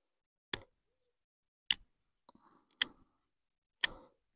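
Small Cudeman bushcraft knife carving a point on a wooden stick: four short, crisp cuts, about one a second, as the blade bites into the wood and slices off shavings.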